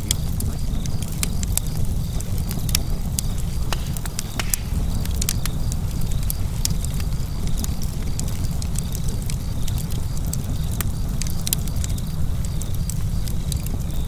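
Fire crackling: irregular sharp pops and snaps scattered over a steady low rumble of burning.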